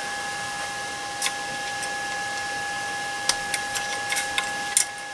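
Light clicks and taps, about eight of them scattered over a few seconds, as a belt tensioner tool and adjuster screws are worked on the belt carriage of an FLSun Q5 delta 3D printer, over a steady high two-tone whine.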